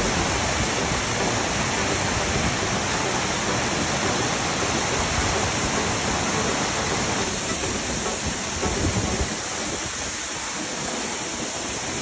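Waterfall: the steady rush of falling water crashing onto rocks, easing slightly in the second half.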